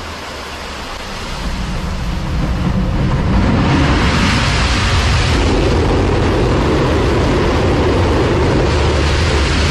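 Hybrid rocket engine firing on a test stand, its exhaust rushing out through a water-sprayed exhaust duct. A loud, steady rushing noise builds over the first few seconds and then holds.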